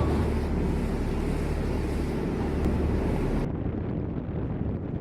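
A boat's engine drones steadily under wind buffeting the microphone and the rush of water. About three and a half seconds in, the upper hiss drops away abruptly while the low drone carries on.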